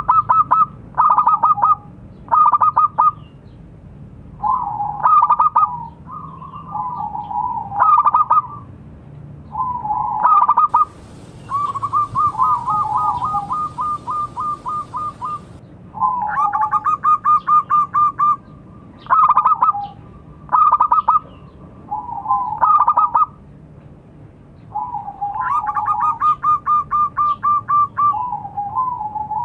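Zebra dove (perkutut) cooing in repeated phrases of quick, rolling staccato notes, with short pauses between phrases.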